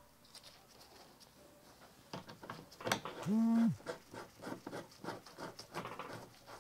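Light clicks and taps of small metal and plastic parts being handled: hose clamps and fittings being set in place on a motorcycle fuel pump assembly. About three seconds in there is a short pitched tone lasting about half a second.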